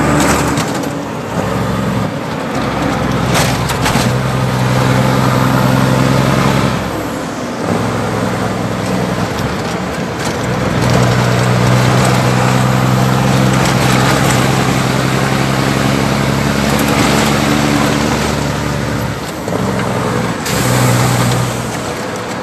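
Heavy diesel truck engine, a Caterpillar 3406, running steadily under way over road and wind noise. Its note drops away briefly about seven seconds in and again near the end.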